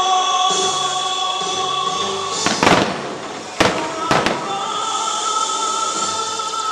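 Fireworks shells bursting, four sharp bangs close together in the middle, over a pyromusical soundtrack of music with long held notes.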